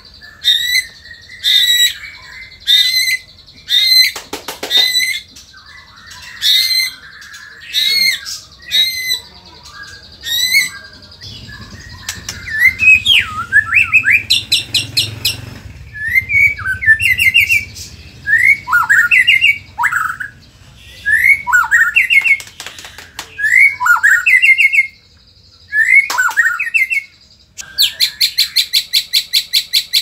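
White-rumped shama singing loudly in a fired-up, combative mood: a string of sharp calls about once a second, then a run of quick whistled notes sweeping down in pitch, and near the end a fast rattling trill of about eight notes a second.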